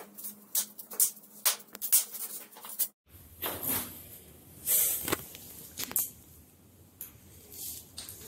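Foam packing being pulled and peeled off a bicycle frame: quick, sharp rustles and scratches. After a short gap about three seconds in, sparser clicks and scrapes of the bike's front parts being handled, over a low steady hum.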